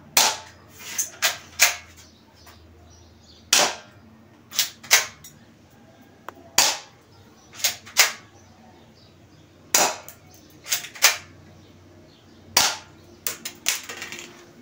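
Full-metal Glock-style airsoft pistol firing BBs one at a time at a CD target: sharp snapping cracks at irregular intervals, several coming in close pairs.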